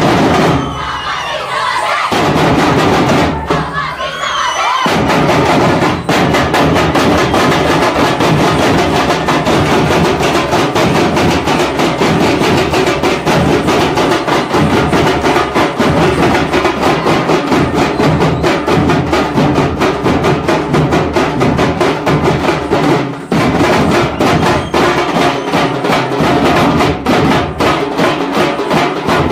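A folk drum ensemble of women beating large double-headed drums with sticks, playing a fast, steady beat together.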